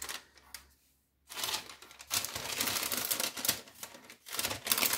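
Baking parchment paper crinkling and rustling as hands wrap and press it around a metal ring mould, with small clicks and taps. It stops briefly about a second in, then crackles almost without a break.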